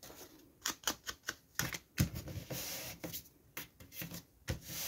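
Paper and craft tools being handled on a work table: a run of sharp, irregular clicks and taps with brief rustles of paper.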